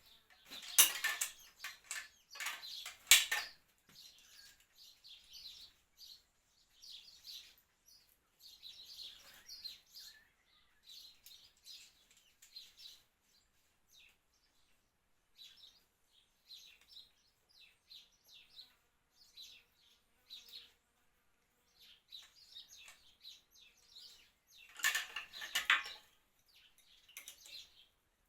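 Metal tools clinking and rattling against metal in two short bursts of sharp clicks, about a second in and again near the end, with birds chirping faintly throughout.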